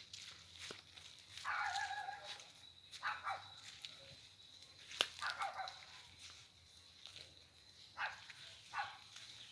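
Crickets chirring steadily, with an animal calling several times over them: one longer call about one and a half seconds in, then shorter calls around three, five, eight and nine seconds in.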